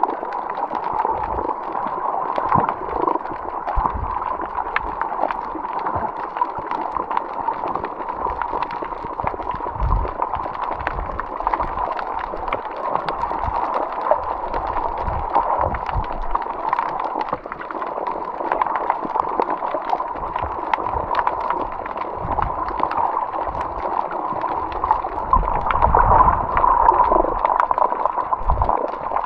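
Water gurgling and sloshing, with a steady crackle and low thumps throughout, growing a little louder near the end.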